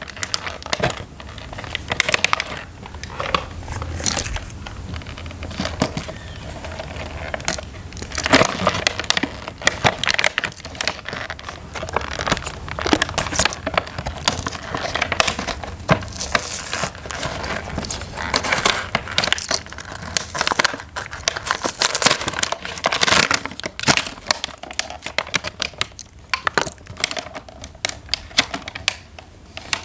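Packaging crinkling and rustling, with many irregular clicks and taps, as toys are unboxed and handled.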